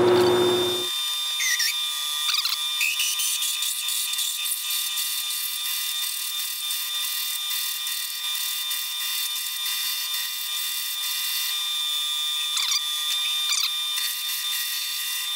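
Large twist drill cutting into a metal part spinning in a metal lathe, a steady high whine of drilling with chips peeling off. A few short squeaks come about two seconds in and again near the end.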